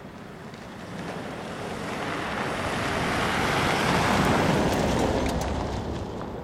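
Land Rover Defender driving past on a gravel road: tyre and engine noise swells to a peak about four seconds in and then fades, with a few sharp ticks near the peak.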